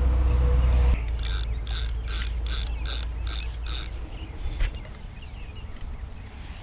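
A low rumble for about a second, then a mechanical ratchet clicking in eight short, evenly spaced bursts, about three a second, dying away after about four seconds.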